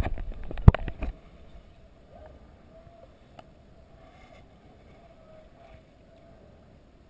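Muffled underwater sound from a submerged camera: sloshing and a few sharp knocks in about the first second, then low, muffled water ambience with a faint wavering hum.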